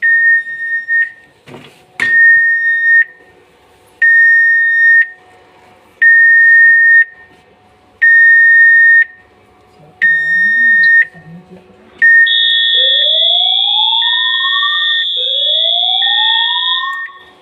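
Fire alarm system of an FC2025 panel sounding its alarm during a test: a high beep, one second on and one second off, repeats steadily. About twelve seconds in, a louder sounder joins with a steady shrill tone and two slow rising sweeps.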